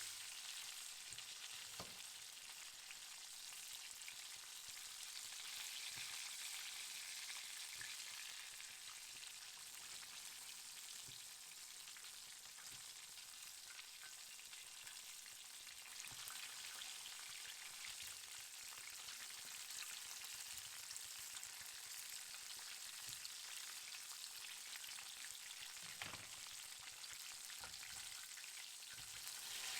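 Chicken frying in hot oil: a faint, steady sizzle with a few sharper pops, the clearest about two seconds in and near the end.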